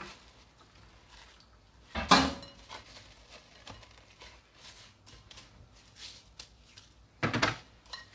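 Plastic cling film crinkling and rustling as hands press it around a glass bowl and handle the bowl, with two brief louder handling noises, about two seconds in and near the end.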